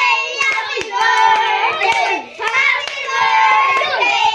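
Singing: one or more voices holding and sliding between long notes.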